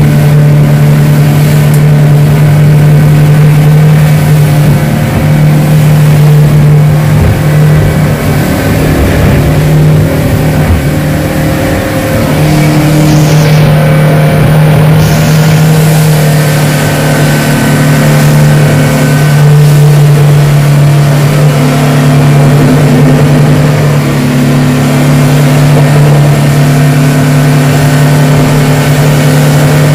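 Yamaha 115 outboard motor running steadily at cruising speed, a loud, even engine hum over the rush of water and spray. The hum wavers and breaks up for a few seconds about eight seconds in, then settles again.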